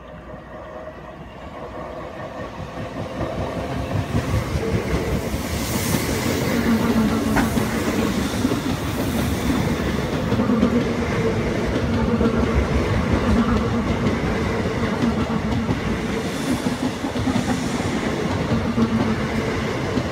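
Two coupled Class 442 electric multiple units running through. The sound grows over the first four seconds or so as the train approaches, then holds as a steady rush with clickety-clack from the wheels as the coaches pass close by.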